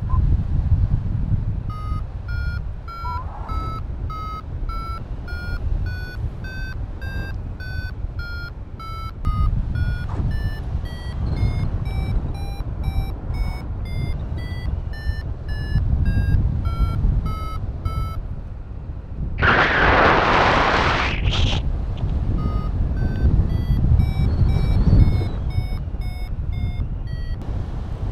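Paragliding variometer (XCtracer Mini IV) sounding its climb tone: short beeps about two a second whose pitch wanders up and down, the sign that the glider is climbing in rising air. Wind rushes over the microphone throughout, with a loud gust about two-thirds of the way through during a break in the beeps. The beeps then resume at a lower pitch, a weaker climb.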